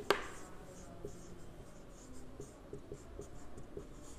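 Whiteboard marker writing on a whiteboard: faint scratchy strokes with small taps as letters are formed, and one sharper tap just after the start.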